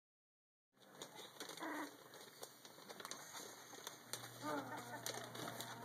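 Puppies play-fighting: short whiny, wavering yips and growls, one just before two seconds in and more from about four seconds on, over scuffling and clicking of paws on the floor.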